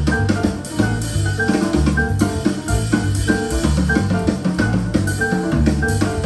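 Instrumental jazz with a drum kit, bass and keyboard, played back through a pair of KEF LS50 Meta bookshelf speakers.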